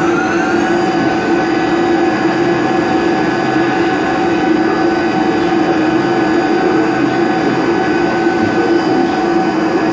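XYZ 560HD CNC mill's spindle whining up in pitch over about the first second, then holding a steady pitch. It runs under a continuous rush of noise as a DLC-coated cutter roughs out aluminium at full feed.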